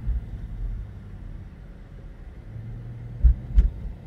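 Low, steady road and engine rumble heard inside a slowly moving vehicle's cabin, with two quick thumps close together about three seconds in.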